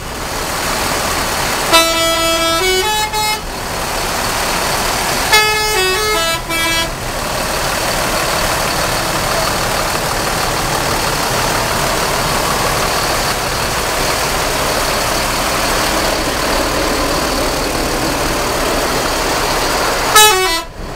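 Bus multi-tone 'telolet' horn playing short stepped melodic phrases, three times: about 2 s in, about 5 s in and near the end. Steady background noise fills the gaps between them.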